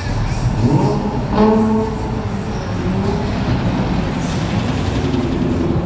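Cars, among them a Dodge Charger, driving slowly past with a steady engine rumble. About half a second in an engine note rises, and around a second and a half in comes a louder held note, the loudest moment.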